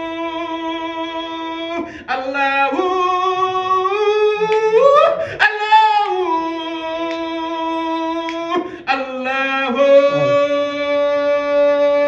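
Zikr chanting: a voice sings long drawn-out held notes in four phrases of about three seconds each, the pitch gliding up near the end of the second phrase and down at the start of the third.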